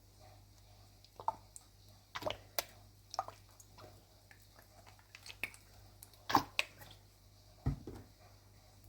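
Pasted, reformed gym chalk blocks crunching as they are crushed, in a scatter of separate crisp crunches at irregular intervals. There is a duller thud near the end.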